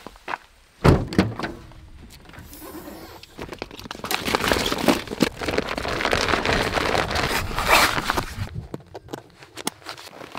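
A Jeep's door shutting with a solid thunk about a second in, then several seconds of crinkly rustling as a white liner bag inside a backpack is stuffed and rolled closed.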